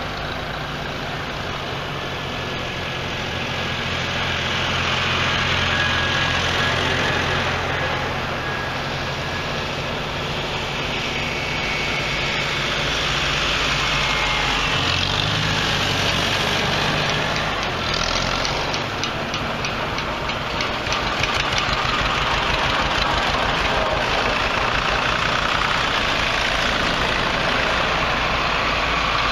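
A line of antique farm tractors driving past one after another, their engines running steadily. The engine note shifts and swells as each tractor comes by.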